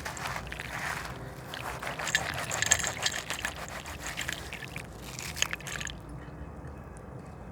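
A gritty slab crumbling apart in water: a fizzing hiss at first, then a dense run of fine crackles from about two seconds in, easing off after about six seconds.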